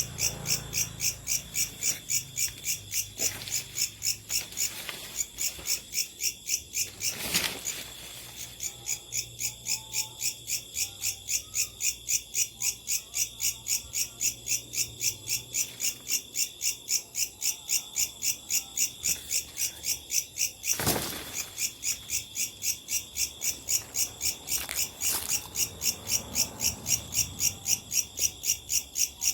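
A night insect, called a locust, calling in a steady rhythm of loud, high-pitched pulses, about three a second. Two brief knocks cut through, about a quarter of the way in and again about two-thirds of the way in.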